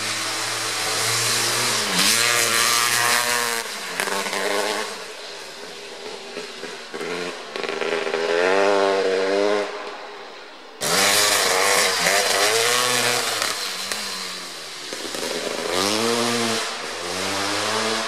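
Kawasaki KX500's 500cc single-cylinder two-stroke engine revving hard as the dirt bike is ridden, its pitch rising and falling again and again with the throttle. There is a sudden jump in loudness about eleven seconds in.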